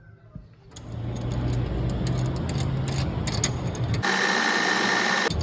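A machine starts running under a second in, with a steady low hum and a rapid clatter of clicks. About four seconds in, a loud hiss with a thin whistle cuts in for just over a second and stops abruptly.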